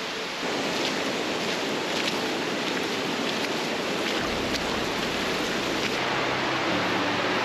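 Creek water rushing steadily over rock, swollen by spring runoff. A low rumble joins a little past halfway.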